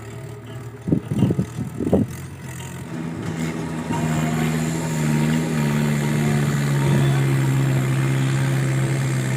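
Tractor engine running, its note rising in steps from about three seconds in and then holding steady as it gets louder. A few sharp knocks come about a second in.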